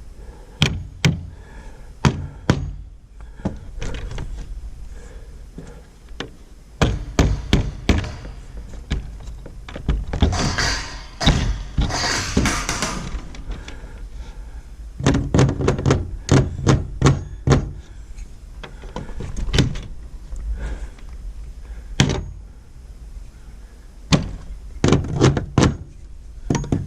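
Repeated knocks and thunks of wood being handled and fitted at a homemade chicken coop door latch, in clusters. About ten seconds in there are a few seconds of scraping noise.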